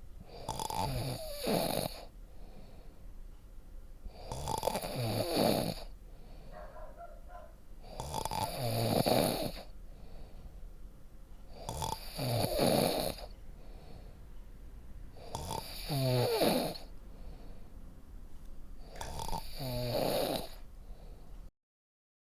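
A person snoring in a steady rhythm: six rattling snores, one about every three to four seconds, each lasting a second or two.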